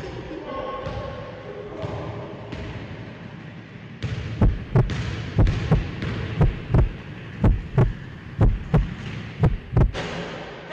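A heartbeat sound effect: paired lub-dub thumps, about one beat a second, starting about four seconds in and stopping near the end.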